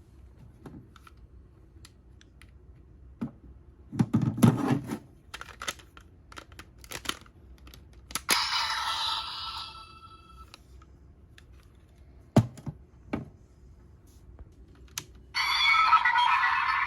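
Hard plastic clicks and knocks of a DX Kamen Rider transformation buckle toy being handled. About eight seconds in, a short burst of electronic sound effects plays from the toy's small speaker. Near the end a louder, longer one starts.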